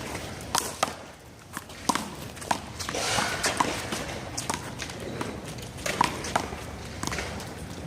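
One-wall handball rally: a small rubber handball slapped by hand, striking the wall and bouncing off the court, a string of sharp irregular smacks.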